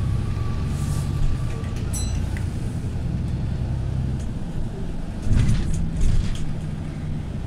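Inside a moving bus: the engine hums steadily and the pitch of the drive shifts about four seconds in. A brief high chirp comes about two seconds in, and a couple of louder knocks and rattles from the body follow a little after five and six seconds.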